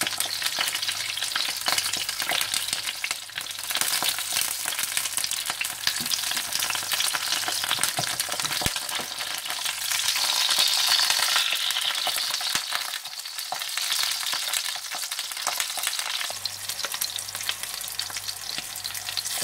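Mince-stuffed bell peppers frying in hot oil in a pot: a steady sizzle of dense crackling, a little louder about halfway through, while the peppers are turned to fry each side.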